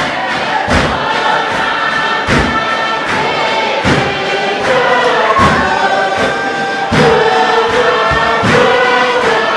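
Tuvaluan fatele: a large group singing together in sustained harmony over a steady struck beat, a little more than one beat a second.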